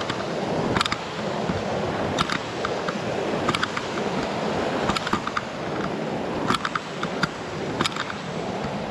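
Footsteps crunching on a dirt and gravel trail, a sharp step every half second to a second, over the steady rush of a creek.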